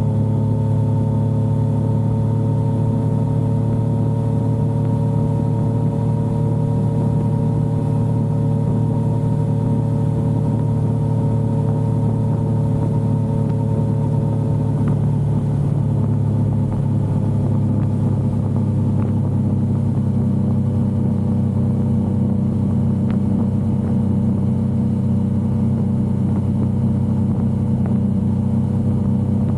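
Yamaha XSR900 motorcycle's three-cylinder engine running steadily while cruising, its pitch easing slightly lower across the stretch.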